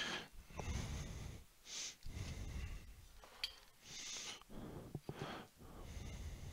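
A person breathing audibly through the nose close to a headset microphone: a run of short breaths, about one every second. A single faint click comes about three and a half seconds in.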